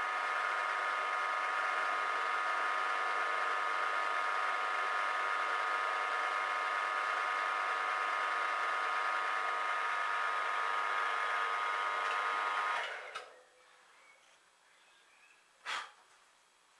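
Geared-head milling machine (Warco Major GH) running with a steady whine while a cutter makes a hole in a clamped metal plate; the spindle cuts off about 13 seconds in. A single sharp click comes a few seconds later.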